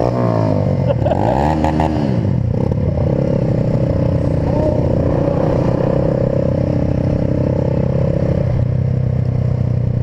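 Small motorcycle engines running as two bikes ride alongside each other. About a second in, the revs drop and climb back up, then hold at a steady pitch.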